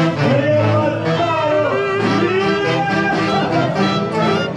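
Andean orchestra playing a tunantada, with wind instruments carrying a gliding melody over a steady beat.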